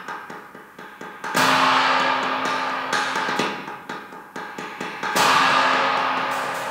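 Cymbal struck with sticks: a run of quick light taps, then a loud crash about a second and a half in that rings and slowly dies away, a few more strokes, and a second loud crash about five seconds in that rings on.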